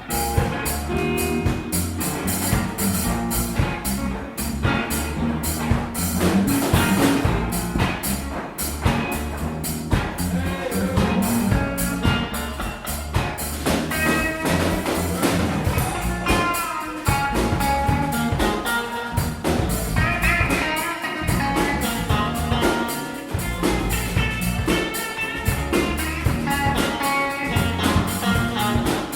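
Small band playing live, a drum kit keeping a steady beat under pitched melodic lines.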